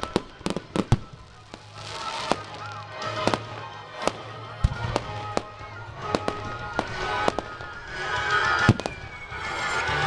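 Fireworks display: sharp bangs of aerial shells bursting, several in quick succession in the first second, then one every half second to a second. A crackling hiss builds over the last couple of seconds.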